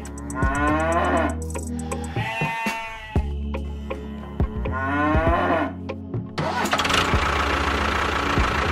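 Three farm-animal calls, moos and bleats about a second long each, over steady background music; from about six seconds in a motor starts running, a dense mechanical noise with a fast low pulsing.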